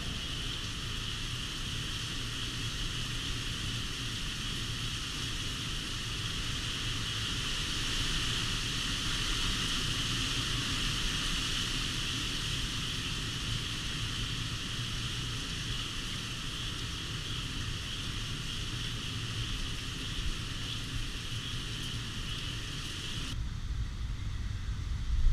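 Heavy hurricane rain and gusting wind, a steady hiss of downpour on pavement and foliage with low wind rumble beneath. Near the end the rain hiss cuts off, leaving low wind buffeting on the microphone.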